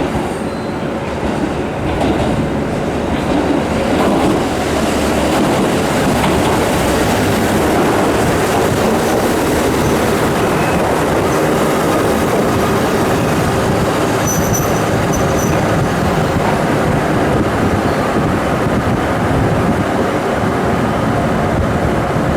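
Train running on the rails: a steady, loud rumble of wheels and track noise, with a brief faint high-pitched squeal about two-thirds of the way through.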